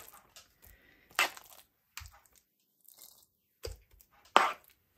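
Metal spoon scraping mashed potatoes out of a frying pan and knocking against a ceramic plate: a few short scrapes and taps, the loudest about a second in and near the end.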